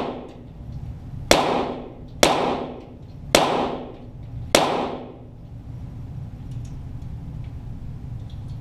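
Four shots from a .22 Walther GSP target pistol, about a second apart, each followed by a short echo; then the shooting stops.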